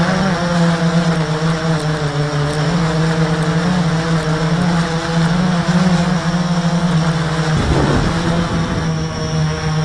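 Drone's motors and propellers humming steadily as heard from its onboard camera, the pitch wavering up and down as the motors work against gusty wind. A brief low rumble of wind buffeting the microphone comes about three-quarters of the way through.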